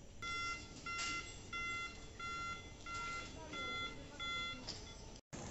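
Baggage carousel warning beeper sounding seven short electronic beeps, about one and a half a second, one steady tone each, over faint airport hall hum.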